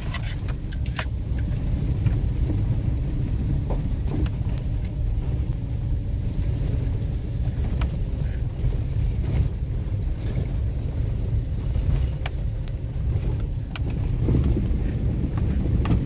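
Car driving up a gravel dirt track, heard from inside: a steady low rumble of engine and tyres, with small clicks and knocks now and then from the rough road.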